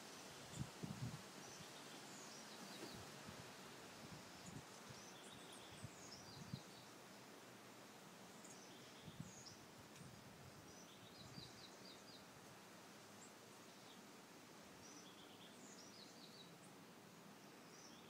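Faint steady background hiss with small songbirds giving short, high chirps in little clusters now and then, and a few soft low thumps in the first seven seconds.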